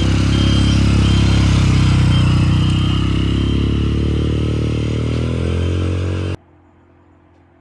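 Motorcycle engine running steadily under way, its pitch easing down a little before the sound cuts off abruptly about six seconds in.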